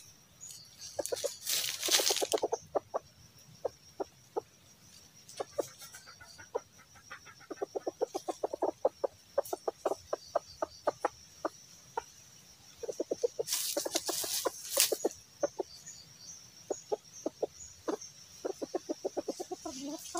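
Red junglefowl rooster clucking: low, short clucks in quick runs of several a second while it pecks at the ground. Two short noisy bursts stand out, about two seconds in and again about fourteen seconds in.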